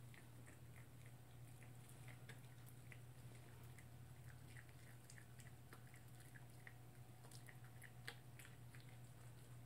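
A toy poodle chewing: faint, small crunching clicks scattered through, with one slightly louder click near the end, over a low steady hum.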